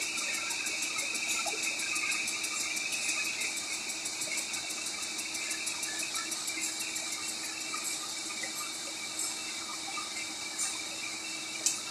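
Metal lathe running steadily while winding steel strip into an auger flight: a steady hiss and hum with faint, rapid, even ticking. A sharp click near the end.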